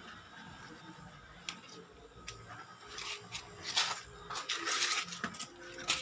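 Scattered rustles, clicks and light knocks of things being handled close to the microphone, busiest about two-thirds of the way through.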